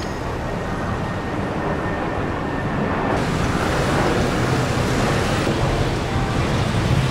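Street traffic noise: a steady wash of passing cars that slowly grows louder.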